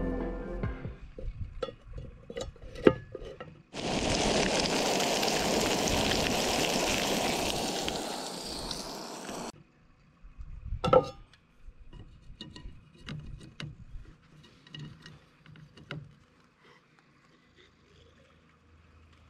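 Two fillets frying in a small frying pan on a camp gas stove: a few light handling clicks, then a loud steady sizzle for about six seconds that cuts off suddenly, followed by a sharp clack of the pan and a few quieter clinks.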